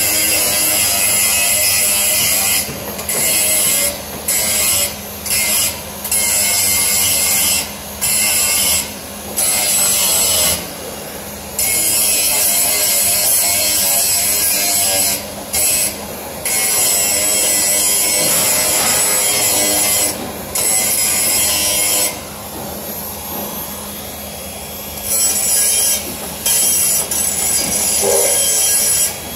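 Makita DGA404 18V cordless 100 mm angle grinder grinding steel bars: a loud, high hissing grind that drops out briefly many times as the disc leaves and meets the metal, and goes quieter for a few seconds about two-thirds through.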